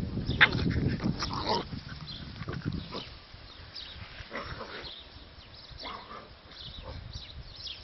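Dogo Argentino puppies play-fighting, with many short high yips and cries, most of them in the first three seconds and fewer after, over a low rumble early on.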